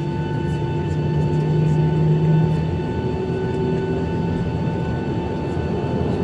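Steady jet engine hum and whine heard inside the cabin of a Boeing 737-800 on the ground after landing, a low rumble under several high steady tones, with the low hum rising slightly in pitch about two seconds in.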